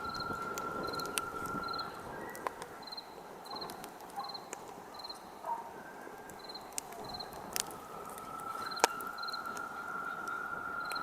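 Campfire crackling with scattered sharp pops, the loudest about nine seconds in, over crickets chirping: a short chirp repeating about twice a second and a steady trill that stops about two seconds in and comes back near eight seconds.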